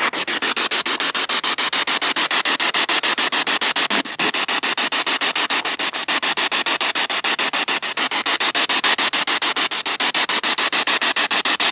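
Spirit box radio sweeping through stations, played through a small JBL portable speaker: loud static chopped into rapid, even pulses, about nine a second.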